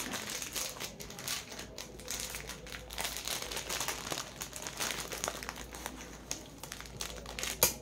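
Jewellery packet being opened by hand, its packaging crinkling and rustling in quick irregular crackles, with one sharp louder crack near the end.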